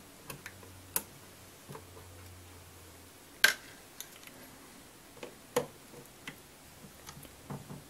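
Scattered small clicks and taps of a screwdriver working small Phillips screws out of a radio's metal top cover. The sharpest click comes about three and a half seconds in, and another about five and a half seconds in.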